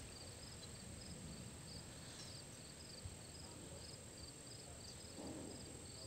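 Faint outdoor ambience with an insect's high chirp repeating about three times a second, over a steady thin high tone.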